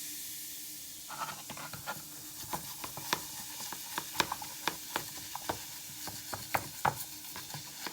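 Irregular small clicks and taps over a faint fizzing hiss: a sink drain stopper being scrubbed and knocked about in a bucket of vinegar, baking soda and water.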